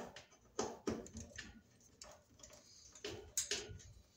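Robertson screwdriver tightening the screw of a cable connector on a stove's sheet-metal back: a string of irregular clicks and short scrapes of metal on metal.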